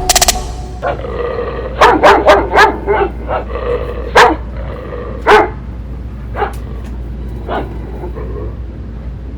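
A bandog barking: a quick run of about six barks a couple of seconds in, then two single louder barks, then fainter spaced-out barks near the end.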